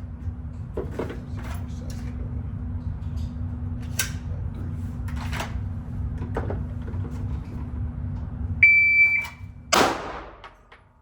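Shot timer's start beep, one steady high tone about half a second long, followed a little over a second later by a single pistol shot: one timed draw to first shot. Before the beep there is a low steady rumble with a few faint clicks.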